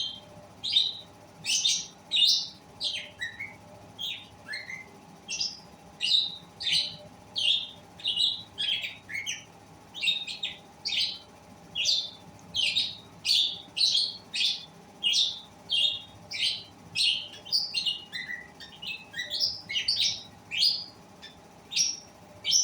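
Pet lovebirds chirping: short, sharp, high calls repeated about twice a second without a break.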